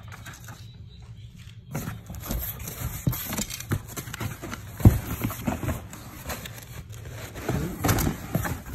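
Cardboard shoe boxes and packaging being handled and opened: scattered scraping, rustling and clicks, with one sharp knock about five seconds in.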